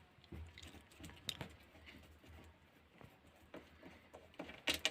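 Faint, scattered clicks and light taps of small metal parts being handled while a steering rack is taken apart by hand, with a couple of sharper clicks near the end.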